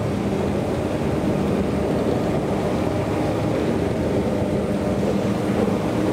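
Traction elevator car travelling through its shaft, heard from inside the car: a steady running rumble with a low hum.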